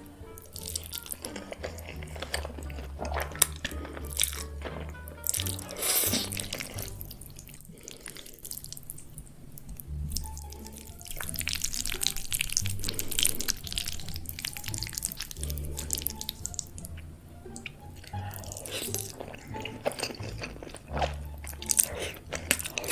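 Noodles being eaten close to the microphone: wet chewing and slurping mouth sounds, many small clicks and smacks, over background music with a low bass line.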